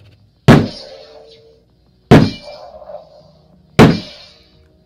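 Three hard whacks about a second and a half apart, each ringing briefly: an extended plastic Power Lance role-play toy being banged against a hard surface to test how sturdy it is.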